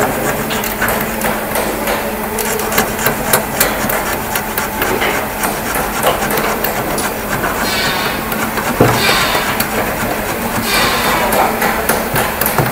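Hammer blows on a chisel driven into a glued wooden chair joint to knock it apart: a run of irregular sharp taps and knocks, with a few short scraping noises in the second half.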